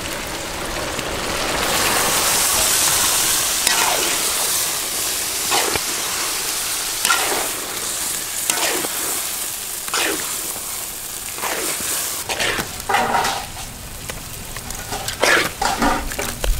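Minced mutton sizzling as it lands in hot oil and masala in a large kadai, loudest a couple of seconds in, then a flat spatula scraping and turning the meat every second or two.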